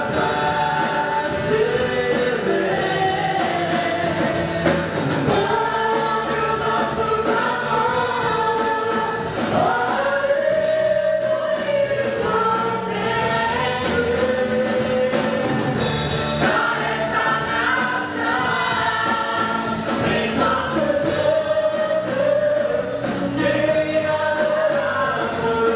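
Gospel choir singing with instrumental backing, voices holding and gliding between sustained notes.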